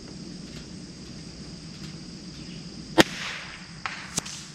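.22 LR rifle shot, one sharp crack about three seconds in, followed by a fainter crack about a second later. Steady insect chirring underneath.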